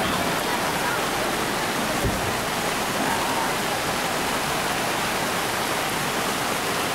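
Steady rush of a white-water river running over rapids.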